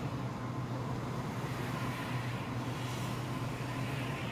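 Steady engine hum and road noise of a car driving along a city road, with a rush that swells near the end as another vehicle passes close alongside.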